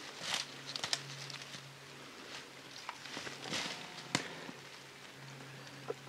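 Dry leaf litter and twigs rustling and crackling in short bursts as someone moves about the forest floor, with a sharp snap about four seconds in.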